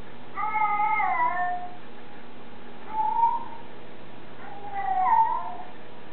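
A cat meowing in drawn-out, speech-like calls: a long one near the start that slides down at its end, a short one about three seconds in, and another near five seconds.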